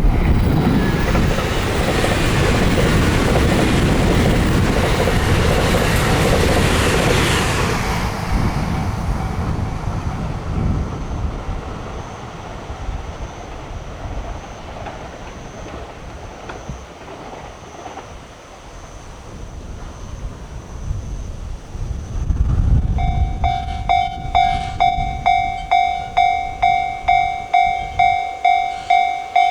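A train on the Hokuriku Main Line passes, its wheel and rail rumble loud at first and fading away after about ten seconds. Late on, a Japanese level crossing warning bell starts ringing, a repeated ding about twice a second, signalling that the next train is approaching.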